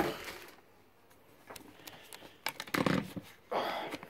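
Quiet handling noise: the clear plastic bag around a CPU air cooler rustling in intermittent short crinkles, with a light knock at the very start.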